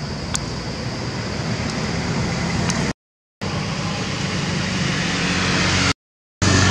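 A steady rushing noise that grows slowly louder, broken twice by brief, sudden drops to dead silence.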